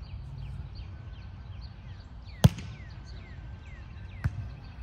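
A volleyball is struck hard once about halfway through, the serve, and a second, lighter hit near the end is the return of the serve. Short high squeaks come and go throughout.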